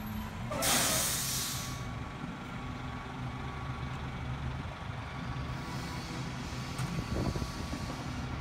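CNG rear-loader garbage truck running with a steady low engine hum, with one loud air-brake hiss lasting about a second, shortly after the start.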